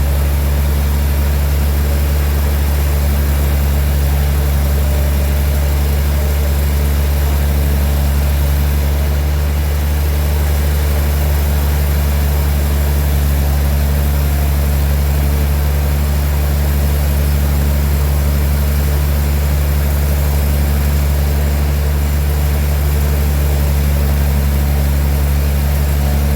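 Sawmill machinery running steadily with a low, even engine drone.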